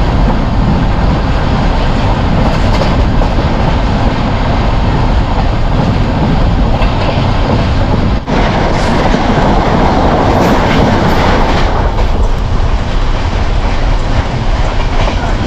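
Running noise of a fast-moving Indian express train, heard at its window: steady rushing wheel-and-rail noise with clickety-clack over the rail joints. There is a short break about eight seconds in, after which a train on the next track goes past close alongside.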